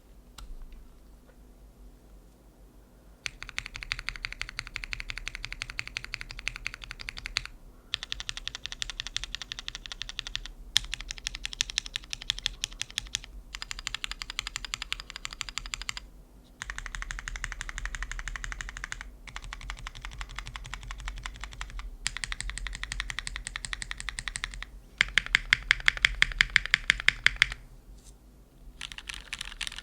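Fast typing on a Mode Envoy mechanical keyboard with lubed Cherry MX2A Black linear switches on an aluminum plate and GMK Kaiju keycaps: dense, clacky keystrokes in bursts of a few seconds with short pauses between them, starting about three seconds in. The owner hears a slight metallic ping from the board's case resonance.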